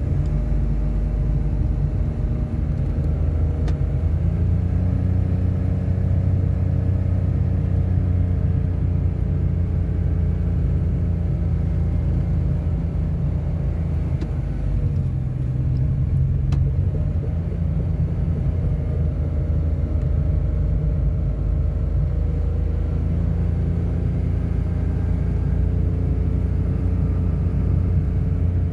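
A motor vehicle driving: a steady engine and road rumble, the engine note shifting a little now and then.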